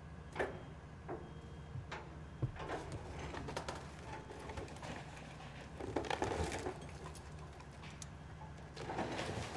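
Excavator's diesel engine running steadily while its bucket breaks up the top of a brick wall. Bricks and masonry knock and clatter as they fall at intervals, heaviest about six seconds in and again near the end.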